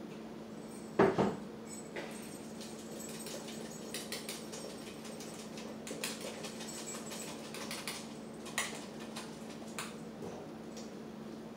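Metal mesh strainer over a pot clinking and scraping as pineapple purée is worked through it, with a louder knock about a second in and scattered small clicks after. A steady low hum runs underneath.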